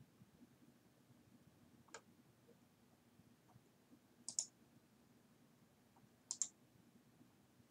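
Computer mouse button clicks: a faint single click about two seconds in, then two sharper clicks, each a quick press-and-release pair, spaced about two seconds apart, over faint room hum.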